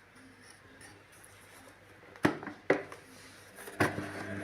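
Three sharp clicks or knocks over a faint low hum: two close together about halfway through and a third near the end. They sound like hard plastic parts of the vacuum cleaner being handled.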